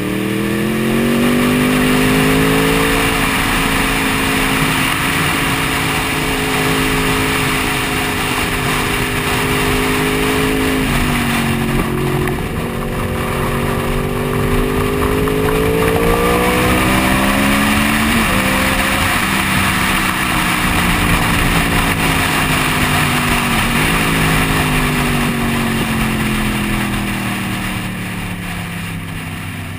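Sport motorcycle engine at full track pace, its pitch climbing and falling as the rider accelerates and brakes, with sudden pitch jumps at gear changes about three times. Heavy wind rushes over the microphone throughout.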